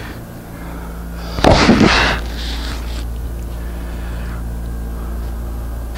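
A brief loud scrape of a pine board being handled and pushed against a clamped guide on a wooden workbench, about one and a half seconds in. A steady low electrical hum runs underneath.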